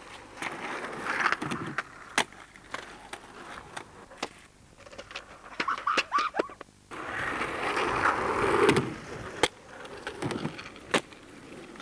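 Skateboard wheels rolling on asphalt in passes that swell and fade, twice, with several sharp clacks of a board hitting the ground.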